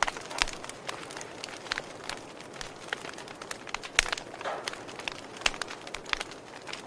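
Fire crackling, with sharp pops and snaps at irregular intervals over a soft steady hiss; the loudest pop comes about four seconds in.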